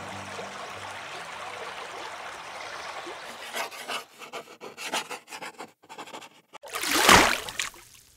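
Flowing stream water, then about three seconds of quick, irregular scratchy strokes like a pencil sketching on paper. It ends in one loud swoosh that swells and fades near the end.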